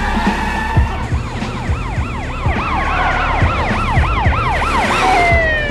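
Police siren in a fast yelp, rising and falling about three times a second from about a second in, then sliding down in pitch near the end.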